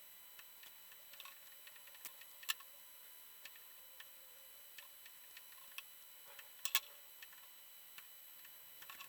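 Sparse light clicks and taps of small hard objects being handled, the loudest a quick double knock about two-thirds of the way through, over a faint steady hum.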